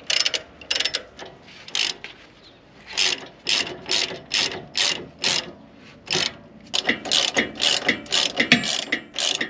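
Hand ratchet wrench clicking as it tightens the bolts on new sway-bar end links. The clicks come in repeated runs of back-strokes, about two a second through the middle, with short pauses, and quicker near the end.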